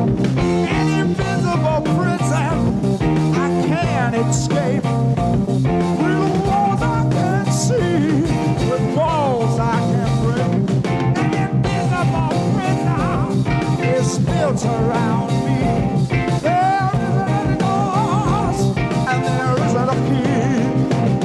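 Early-1970s hard rock recording in an instrumental break: lead guitar bending and shaking its notes over a steady bass line and drums.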